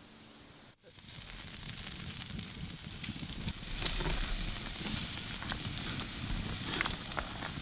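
Steaks sizzling on a grill grate over a wood campfire, with scattered sharp pops. The sizzle comes in about a second in and grows louder.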